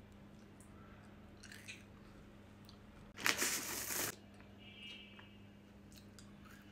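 A clear plastic bag of small coloured pebbles rustling and crinkling for about a second as a hand rummages in it, about three seconds in; otherwise a quiet room with a few faint ticks.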